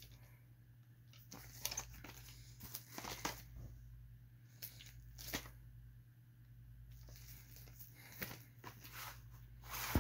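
Faint, scattered crinkling and crackling of plastic wrap as a shrink-wrapped VHS tape case is handled and turned over, over a steady low hum.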